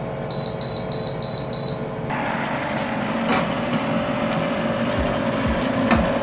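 Aobosi countertop oven beeping about five times in quick succession, short and high-pitched: the alert that preheating to 350°F is done. The oven hums steadily underneath, and there is a light knock near the end as the pan slides onto the oven rack.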